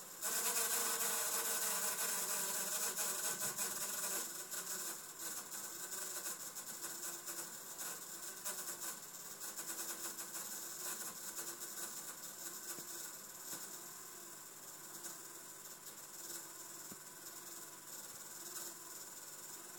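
Awful noise from a busted laptop: a steady high hiss with a faint whine, loudest for the first four seconds or so, then settling a little quieter.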